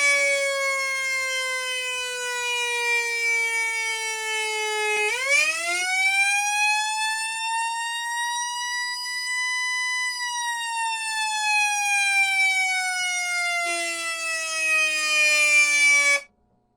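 Whelen Alpha electronic siren playing its simulated mechanical "Q" tone. It coasts down in pitch, winds sharply back up about five seconds in and levels off, then coasts down again before cutting off abruptly near the end.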